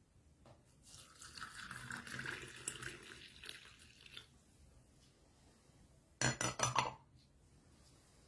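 Kitchen utensils and dishes being handled, with liquid: about three seconds of rattling and splashing begin a second in, then a quick run of about five sharp clinks of a utensil against a dish.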